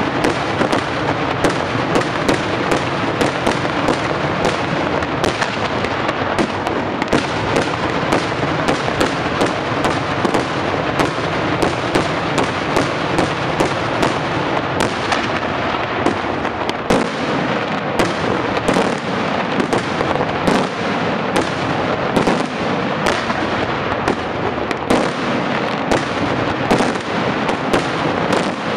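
Daytime fireworks barrage: a dense, unbroken run of firework bangs and crackling reports from shells bursting in the sky, the explosions following each other several times a second with no pause.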